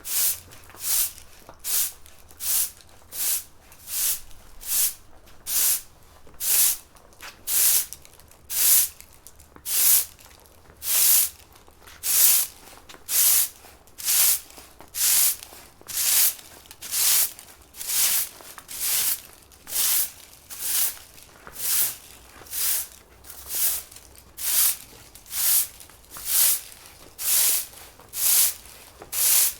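Broom sweeping a pavement: steady back-and-forth strokes of bristles scraping across the hard surface, about four strokes every three seconds, each a short hiss with brief pauses between.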